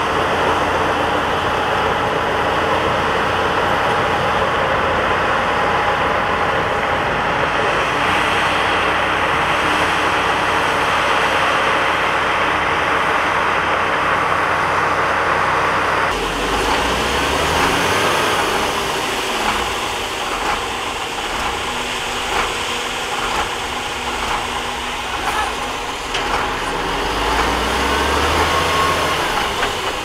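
Dump truck's diesel engine running while its raised bed tips out a load of dirt and rocks, with the sliding load making a steady rushing noise. About halfway through the sound changes abruptly to a lower engine rumble with scattered knocks of rocks tumbling out.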